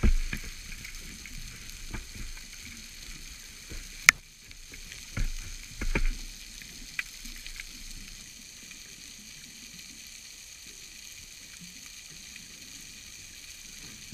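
Underwater sound from a submerged camera: a steady crackling hiss with scattered clicks, one sharp click about four seconds in, and a few dull knocks a second or two later.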